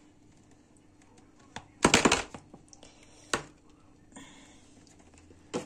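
Kitchen handling sounds as a milk carton and drinking glass are picked up and set down: a quick cluster of sharp clacks about two seconds in, a single knock a little after three seconds, and another click near the end.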